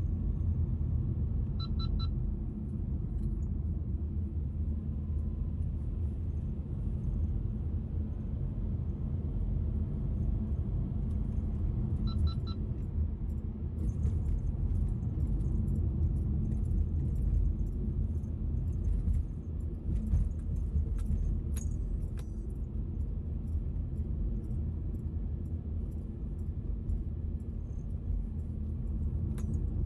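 A car driving, heard from inside: the steady low rumble of engine and tyre noise. Two brief high double beeps come about 2 seconds and 12 seconds in, and light rattling and ticks are heard in the middle.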